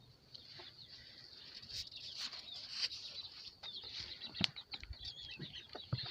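Chickens in a coop: a steady chatter of short high-pitched chick peeps, with scattered rustling and a few sharp knocks from the birds moving about, the loudest about four and a half seconds in and near the end.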